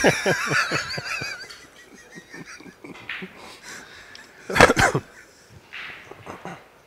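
Men laughing, a wheezy, wavering laugh that trails off over the first second and a half. About four and a half seconds in comes one short, sharp knock: a pool cue striking the cue ball.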